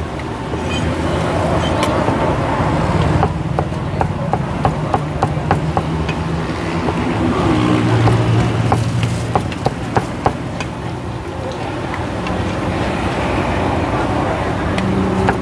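A steel cleaver chopping fried sun-dried beef on a thick wooden chopping block: a quick, uneven run of sharp knocks, several a second. A steady low hum runs underneath.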